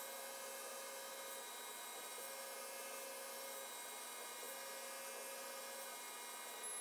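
Laser cutter running while it cuts birch plywood: a steady hum and hiss, with a higher tone that comes and goes in stretches of about a second and a half as the head moves.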